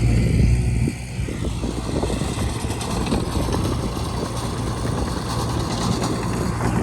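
Bulldozer at work: its engine hum is steady for about the first second, then abruptly gives way to irregular clattering and rumbling.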